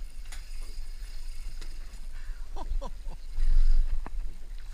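Wind buffeting the action-camera microphone over water moving around a small boat, with one strong gust a little past halfway. A few light clicks and brief squeaks from the rod and reel.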